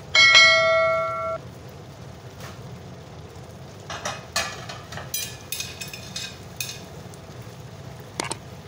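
A bright bell ding, a notification-style sound effect, rings out just after the start and fades over about a second. After it a low steady background runs on, with a few faint clicks in the middle.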